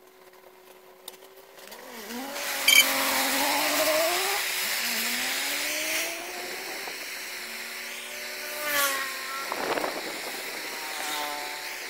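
A handheld gas torch hisses as its flame burns away the resin casing of a motorbike ignition coil. The hiss starts about two seconds in, with a sharp click just after. Rising whining tones from an engine run alongside.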